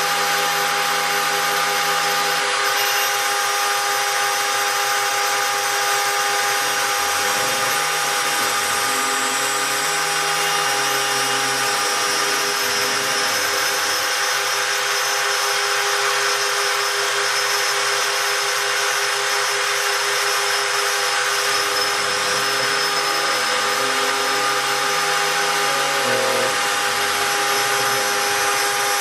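Spindle of a homemade CNC gantry milling machine running steadily while engraving brass, with a constant high whine and lower motor tones that change pitch in steps as the machine's axes move.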